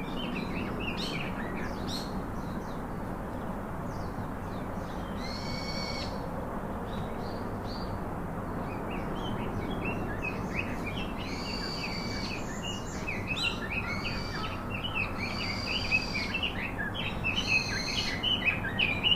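Birds chirping and calling over a steady background hiss, the chirps sparse at first and thick and busy in the second half, with a few longer held calls among them.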